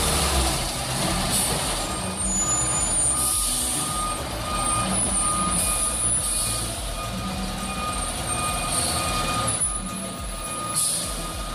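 Heavy truck engine running under load, with a reversing alarm's high beeping tone repeating on and off and several short hisses.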